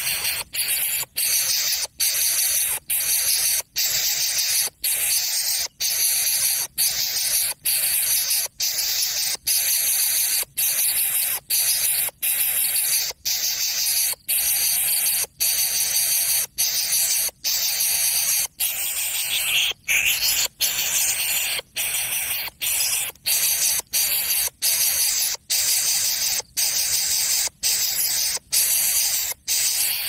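Greater coucal nestling hissing while begging for food: a loud, harsh run of rasping hisses, a little under two a second, each cut off by a short gap.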